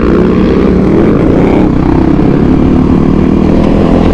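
Motorcycle engine running while under way, a loud steady drone that wavers slightly in pitch as the throttle changes.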